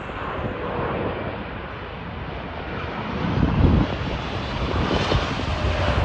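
Boeing 787 jet engines passing low on landing, a steady rushing jet noise with deep rumble that swells about three seconds in as the airliner goes by toward touchdown. Wind buffets the microphone throughout.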